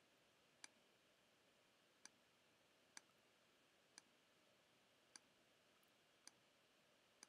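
Faint, sharp computer mouse clicks, about one a second, seven in all, as outline points are placed one by one in embroidery digitizing software.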